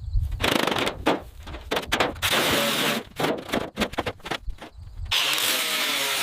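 Workshop tool noises: a rapid run of short scraping and knocking bursts, then a steady hissing whir from about five seconds in.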